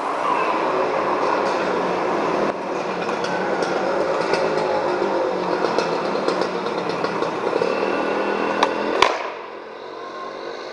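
Skateboard wheels rolling over plaza paving, with scattered clacks of the board and one sharp crack of the board hitting the ground about nine seconds in, after which it goes quieter.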